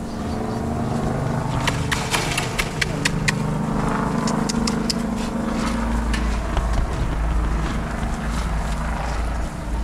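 Motor vehicle engine running steadily while moving, with a run of sharp clicks and rattles in the first half and a deeper rumble from about six seconds in.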